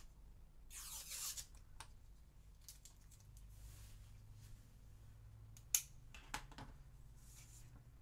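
Faint handling noises of craft tools on a cutting mat: a short scraping rasp about a second in, then scattered light clicks and taps, two of them sharper past the middle.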